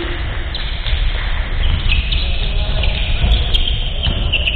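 Basketball game in a large gymnasium: sneakers squeak and shuffle on the wooden court, with distant voices echoing in the hall over a steady low rumble.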